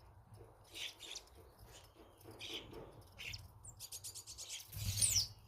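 Starlings calling at a bird feeder: scattered short chirps and a fast clicking rattle, then a loud falling whistle with a dull low bump near the end.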